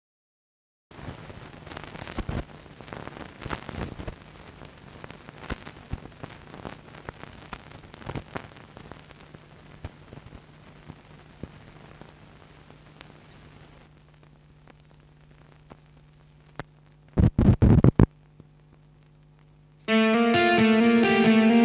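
Old-film crackle and pops over a faint steady hum, with a few loud bursts about three quarters in; near the end, loud rock music with distorted electric guitar starts.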